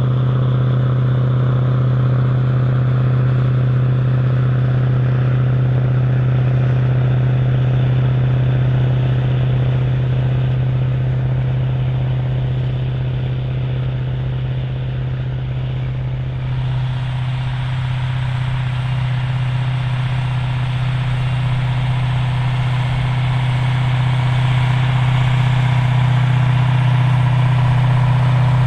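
Diesel engine of a large articulated farm tractor running steadily with a deep, even hum. About halfway through the sound shifts and takes on more high-pitched mechanical noise, growing a little louder near the end.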